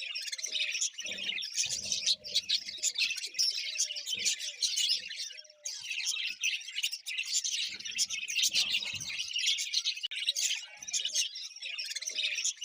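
A group of budgerigars chirping and chattering continuously in a fast, dense twitter, with short lower-pitched calls now and then.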